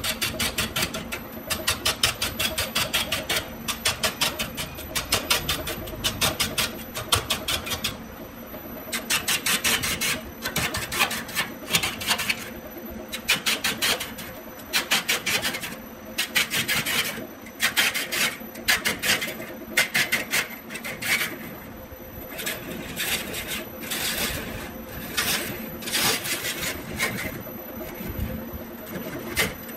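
Wood lathe turning a bamboo piece: the motor hums steadily while a hand-held turning tool scrapes and cuts the spinning surface in rapid rasping bursts that come and go as the tool is worked along.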